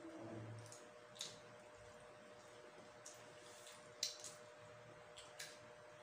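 Quiet eating sounds: a few short, sharp mouth clicks and smacks from chewing, spaced a second or more apart, over a faint steady hum.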